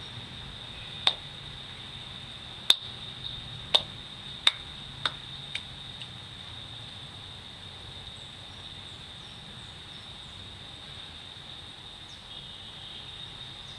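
Steady high-pitched insect trill, like crickets, over a faint background hiss. Six sharp snaps or clicks come in the first half, about one a second, the later ones fainter.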